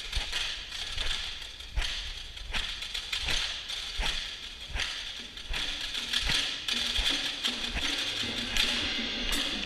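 Indoor percussion ensemble playing a clockwork-style passage: sharp strikes on a steady pulse, about one every three-quarters of a second, over a continuous ratchet-like rattle.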